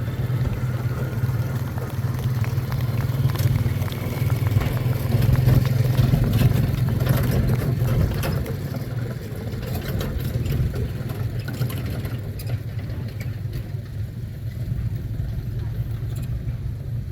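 A small vehicle engine running steadily as it tows the barrel train ride past, with scattered clicks and rattles over a low, even hum.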